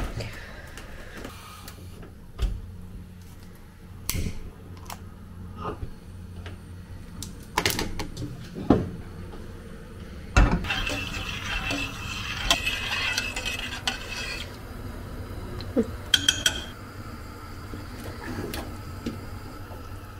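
Kitchen clatter as food is reheated: pots, plates and cutlery knocking and clinking at irregular intervals over a steady low hum, with a few seconds of hiss about halfway through.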